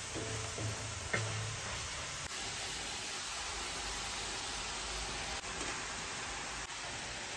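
Steady hiss of sliced mushrooms sizzling in a pan on a wood stove, with a few light knife taps on a plate in the first second and a half.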